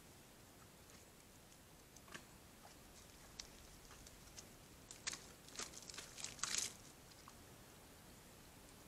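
Faint snaps and crunches of twigs and leaf litter as red deer hinds move and feed on the forest floor, with a short cluster of louder crackling about five seconds in.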